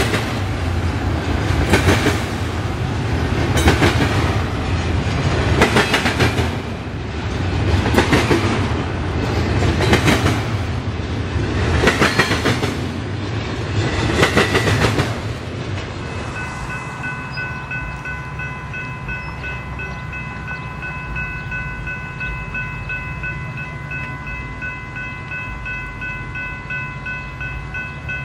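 Double-stack intermodal freight train passing, its wheels clattering over the rails in a loud surge about every two seconds. About halfway through the train clears, and a grade-crossing warning bell keeps ringing steadily over a low rumble.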